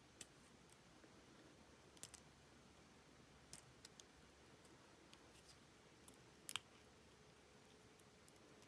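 Faint, scattered light clicks of small padlock parts being handled and fitted during reassembly, with a sharper close pair about two-thirds of the way through.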